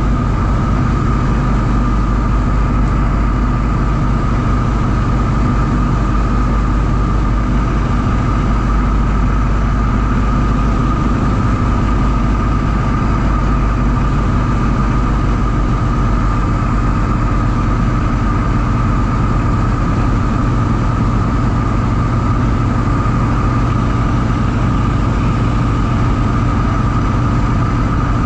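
Ford Tri-Motor's radial engines and propellers droning steadily in cruising flight, heard from inside the cabin: an even low rumble with a steady high tone over it.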